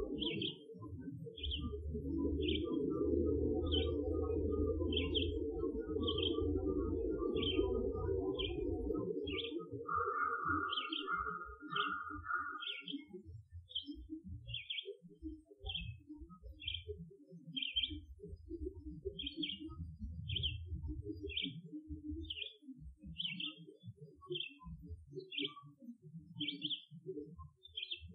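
A songbird repeating a short, high chirp a little more than once a second, with a brief trill about ten seconds in. Under the birdsong runs a low, uneven rumble, steady for the first nine seconds or so and then breaking into irregular pulses.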